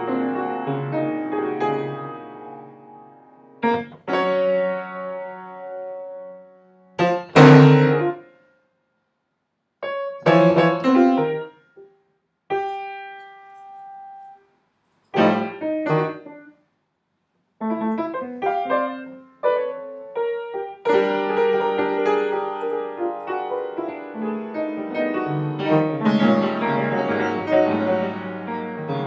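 Piano playing: separate chords struck and left to ring and fade, with short silent gaps between them, turning into busier, continuous playing about two-thirds of the way through.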